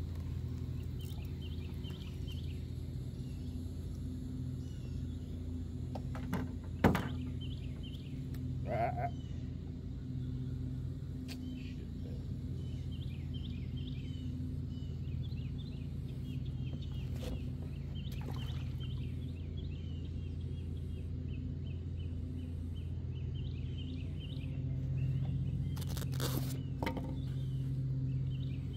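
Outdoor lakeside ambience: a steady low hum with faint high chirping throughout, a single sharp click about seven seconds in, and a brief call a couple of seconds later.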